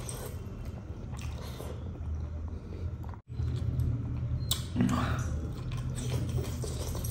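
A man chewing mouthfuls of fish curry and rice that he eats by hand, with small clicks and mouth noises. The sound drops out sharply for a moment about three seconds in.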